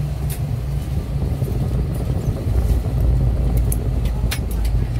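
Steady low rumble inside an Airbus A320 cabin, growing a little louder about halfway through, with a few sharp clicks and knocks.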